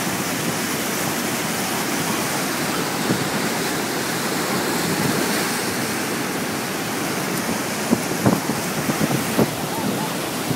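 Floodwater rushing at the Guadalentín river dam in spate after heavy rain: a loud, steady, unbroken roar, with a few short low bumps near the end.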